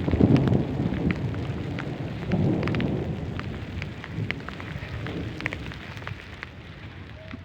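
Heavy rain with scattered sharp drop hits, over a low rumble that is loudest at the start and slowly dies away.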